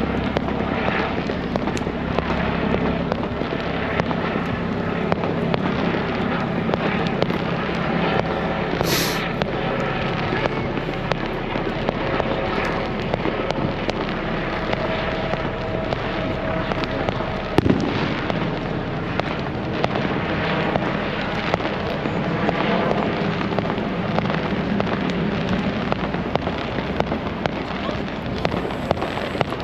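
Many fireworks going off at once: a dense, continuous crackle of pops and bangs, with a low hum under it for the first several seconds and one sharp, high crack about nine seconds in.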